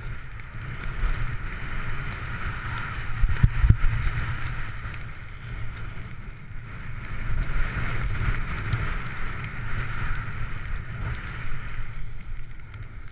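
Wind rushing over the microphone at skiing speed, a low rumble that is loudest a few seconds in, with the hiss of skis carving packed snow swelling and fading with the turns.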